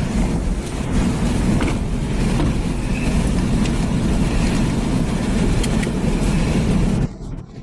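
A car driving, with a steady low rumble of engine and road noise. It cuts off abruptly near the end to quieter, gusty wind noise.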